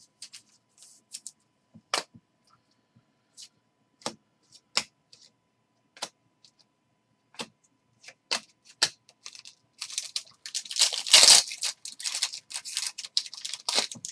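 Baseball trading cards handled by hand: scattered sharp clicks and snaps of card stock as cards are flicked and shuffled, then a few seconds of dense, crackly rustling of cards, loudest about eleven seconds in.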